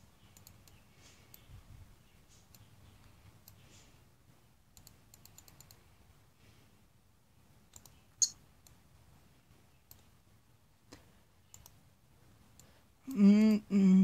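Faint, scattered computer mouse clicks, with one sharper click about eight seconds in. Near the end a person hums loudly, a wavering pitched note.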